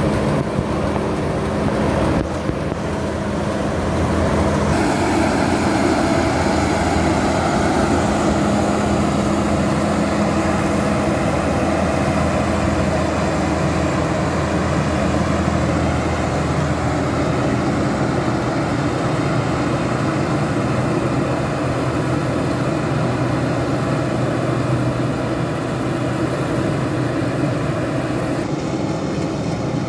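Tracked rice combine harvester running steadily while it cuts and threshes paddy: a constant engine drone mixed with the noise of the threshing machinery.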